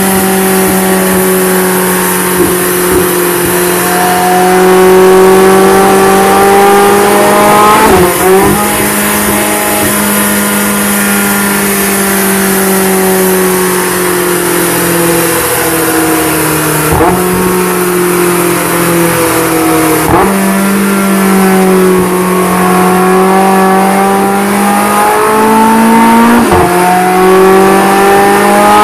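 Porsche 918 Spyder's naturally aspirated V8 running under load on a chassis dyno, pulling up through the gears: the engine note climbs slowly in pitch and drops sharply at each gear change, several times.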